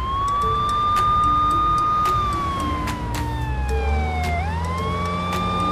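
Police car siren wailing. The tone rises and holds, then falls slowly, and about four seconds in it sweeps sharply back up and holds again.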